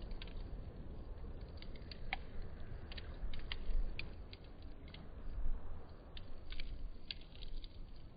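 Wood campfire crackling: scattered sharp pops and snaps over a steady low rumble.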